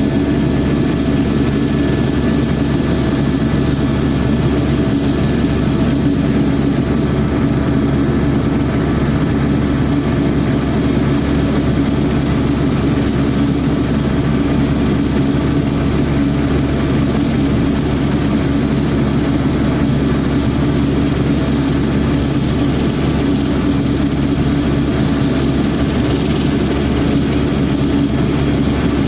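Helicopter in flight: a steady, loud drone of turbine engine and rotor with a constant low hum and faint high whines, unchanging throughout.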